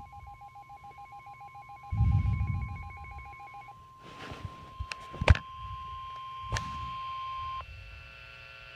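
Telephone-like electronic tones: a steady beep under a fast-pulsing two-tone warble that stops about four seconds in, then two sharp clicks, and near the end the steady tones change to a different chord.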